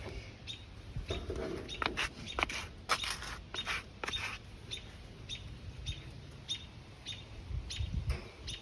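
A small bird chirping repeatedly, short high chirps about two or three a second, over a low background rumble.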